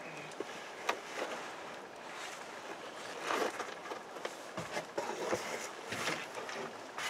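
Campfire crackling, with irregular sharp clicks over a steady hiss, and a few rustles and low knocks from handling near the fire.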